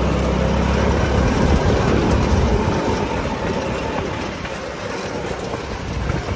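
Off-road buggy's engine running, with a faint whine rising in pitch; the deep engine sound falls away about two and a half seconds in, leaving a steady noisy rush.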